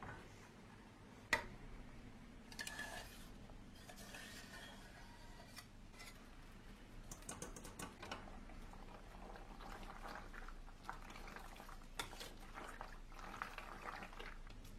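Quiet kitchen cooking sounds: a utensil clicking and scraping lightly against a saucepan, with soft wet sounds of a thick béchamel sauce being handled. There is a sharper click about a second in and another near the end.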